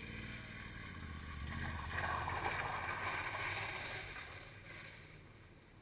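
A motorcycle engine running as a bike rides past, swelling about two seconds in and fading toward the end, over a low steady rumble.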